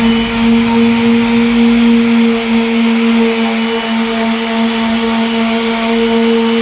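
Electric sander running steadily with a constant motor hum, sanding a plastic headlight lens at the 400-grit stage of a restoration.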